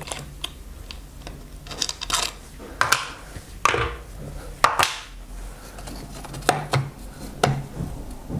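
Hand tools and pivot hardware clinking and knocking as a mountain bike's rear suspension pivot is unbolted: a string of sharp, irregular metallic clicks.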